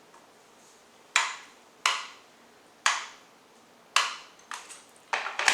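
Plastic on-off switch of a Vosen electric kettle being clicked repeatedly: four sharp clicks about a second apart, then a quicker run of lighter clicks near the end.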